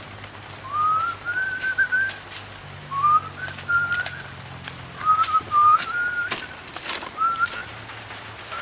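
Four short whistled phrases, each gliding up and then holding or warbling, with scattered sharp clicks or taps between them.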